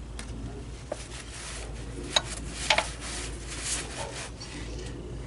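A few short, sharp clicks and taps from hand work on small parts, over a low steady hum.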